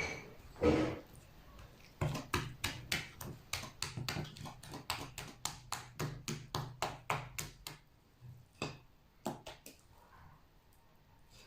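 A utensil stirring batter in a mixing bowl, knocking against the bowl once about a second in, then clicking quickly, about four times a second, for several seconds before slowing to a few scattered taps.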